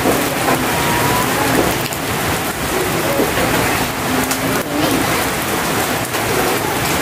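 Steady rainfall, a dense even hiss.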